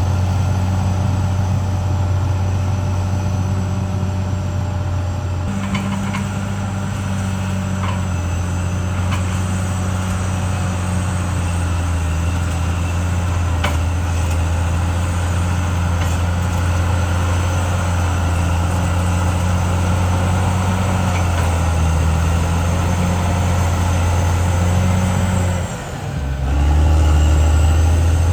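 Caterpillar D6R XL bulldozer's diesel engine running steadily under work, with a few faint clanks. Near the end the engine note dips briefly, then comes back louder and lower.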